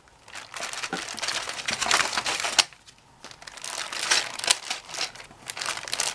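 A bag of loose keycaps being handled and crinkled, in two stretches with a short pause about halfway through.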